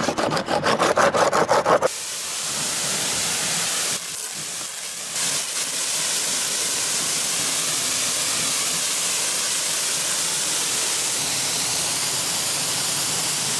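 Sandpaper rubbed by hand over a plastic fender liner in quick, rhythmic back-and-forth strokes. From about two seconds in, a pressure washer's water jet hisses steadily as it rinses the plastic fender liners.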